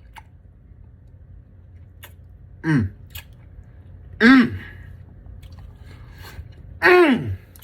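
A person chewing food with faint clicks, breaking out three times into short wordless vocal exclamations that fall in pitch.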